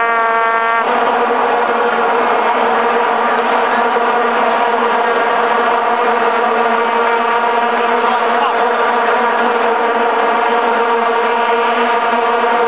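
Many vuvuzelas blown together by a stadium crowd, a dense, steady buzzing drone on one low pitch. One nearby horn sounds loud and clear over it for about the first second.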